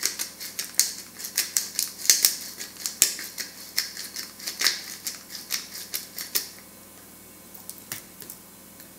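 Hand pepper mill being twisted, its grinder crackling in quick, irregular clicks as it grinds peppercorns. The grinding stops about six and a half seconds in, leaving a few faint clicks.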